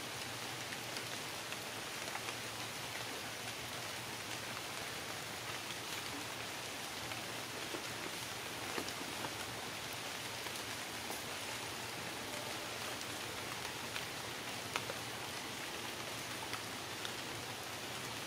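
Steady light rain pattering, with scattered single drops ticking louder now and then.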